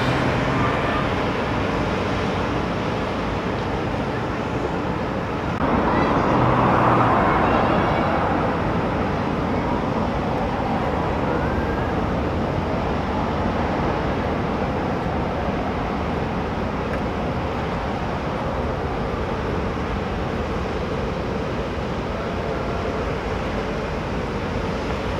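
Steady road traffic noise, with a louder passing rush that starts suddenly about six seconds in and fades over the next two seconds.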